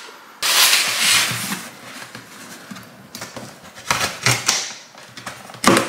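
Cardboard box being handled and opened: rustling and scraping of the cardboard flaps and packing tape in several bursts, the loudest about half a second in.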